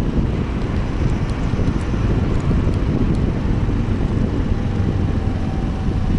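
Wind rushing over the microphone on a moving Suzuki Address 125 scooter, over the steady running of its engine and tyres on the road.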